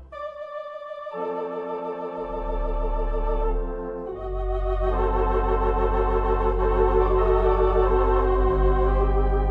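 Organ music: slow, sustained chords with a wavering vibrato. A deep bass note comes in about two seconds in, and the music grows fuller and louder after about four seconds.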